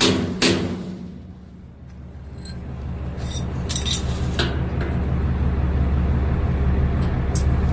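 A hammer strikes the steel suspension bolt once just after the start, the end of a run of blows, followed by a few light metal clinks of tools. Under it a vehicle engine runs steadily, growing louder from about two seconds in.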